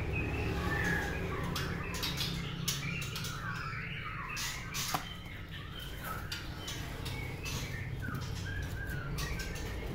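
White-rumped shama in a cage, fluttering and hopping with many quick wing flaps and sharp taps, between short chirping song phrases; one sharp click about halfway through.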